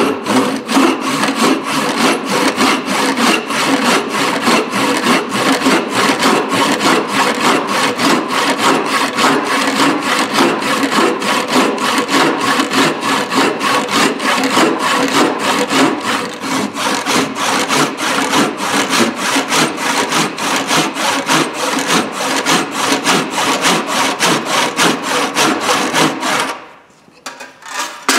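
Handsaw cutting a slot into the end of a wooden hammer handle, in a steady rhythm of quick back-and-forth strokes that stops a second or two before the end.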